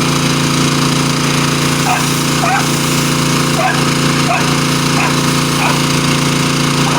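A small engine running steadily at a constant speed, with a dog's short, high cries over it about once a second.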